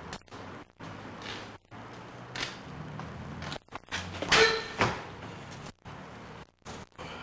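A sharp clack with a brief ringing about four seconds in, followed by a second knock half a second later, with lighter knocks earlier over a steady low hum that drops out briefly several times.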